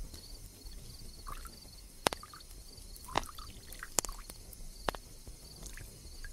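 Sparse liquid drips, four sharp ones about a second apart in the middle, over a faint high chirping that repeats steadily throughout.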